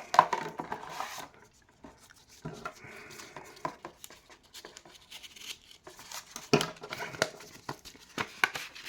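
Hands handling a miniature blind box and its packaging: intermittent rustling and crinkling with scattered sharp clicks and taps, the loudest near the start, about two-thirds of the way through and near the end.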